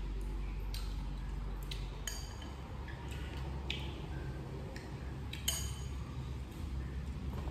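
Wooden chopsticks clinking against ceramic bowls and a metal tray while eating, a handful of short light clinks, the sharpest about five and a half seconds in.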